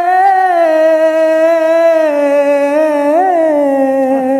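A man singing one long held note, with a small turn in the pitch about three seconds in and then a step down to a lower note near the end.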